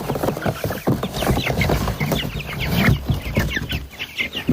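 A group of young broiler chicks peeping, many short falling cheeps overlapping one another.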